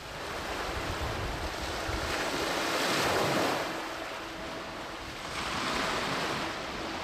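Wind-driven waves on a lake washing against the shore, with gusty wind buffeting the microphone. The wash swells loudest about three seconds in and again near the end.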